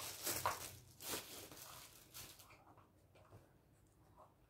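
Clear plastic wrapping crinkling and rustling as it is handled and pulled away, loudest in the first two seconds or so, then dying down to a few faint taps.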